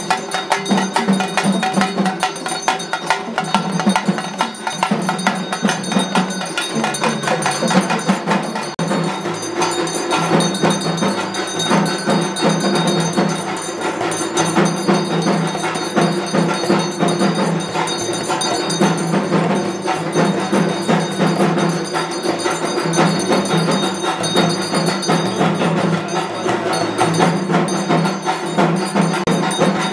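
Ritual temple music of hand drums and ringing bells, played continuously, over a low tone that swells and fades every second or two.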